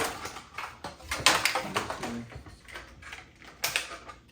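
Irregular clicks, taps and light knocks of hard plastic: small toy figures and their packaging being handled.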